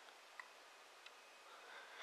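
Near silence with two faint, short clicks under a second apart as the LG Nexus 4's touchscreen is tapped through its setup screens.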